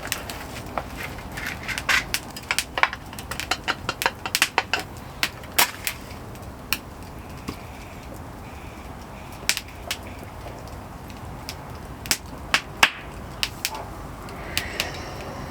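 Wood fire crackling, with irregular sharp pops and snaps over a steady hiss, the pops thickest in the first half.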